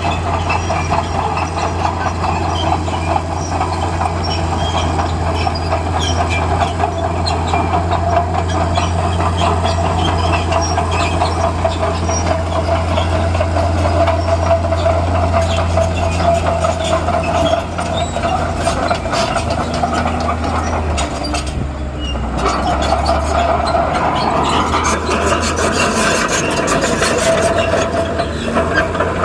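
Bulldozer's diesel engine running with its steel tracks clanking continuously. About twenty-two seconds in the sound drops briefly, then picks up again with a rising whine as the engine revs.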